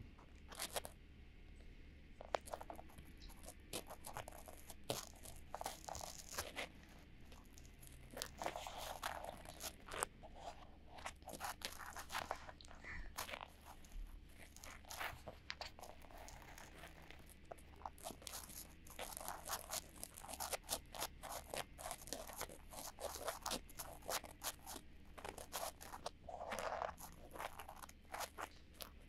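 Cotton swabs rubbing and scratching inside both silicone ears of a binaural ASMR microphone, heard close up as many quick, irregular scratching strokes.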